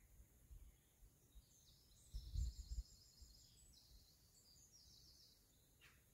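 Faint bird song: a run of high chirps and trills lasting a few seconds. A brief low rumble of wind on the microphone comes about two seconds in.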